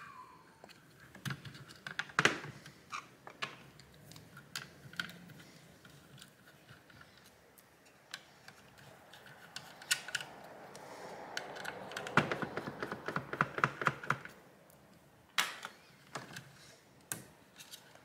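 Light clicks and taps of hands handling the opened plastic housing and circuit boards of a portable video magnifier, scattered through, with a run of rapid clicking about twelve to fourteen seconds in.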